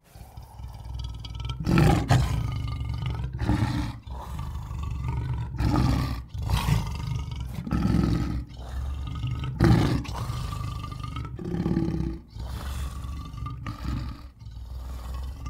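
Big-cat roar and growl sound effects for animated saber-toothed tigers: about eight separate roars and growls in a row, each a second or two long, with pitch that bends.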